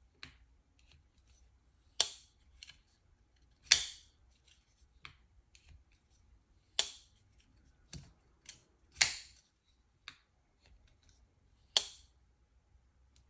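Terrain 365 Invictus folding knife with a Terravantium blade on a ball-bearing pivot, flipped open and snapped shut over and over: about five sharp snaps a couple of seconds apart, with lighter clicks between. The lockup has a satisfying thud rather than a metallic ting.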